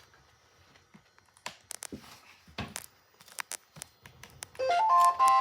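Scattered small clicks and knocks of plastic knife parts and screws being handled, then near the end a loud short electronic jingle of quick beeps stepping upward in pitch.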